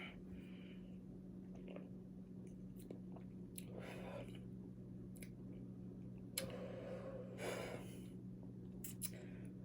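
Faint mouth sounds of sipping and swallowing soda, a few soft gulps and small clicks, over a steady low hum.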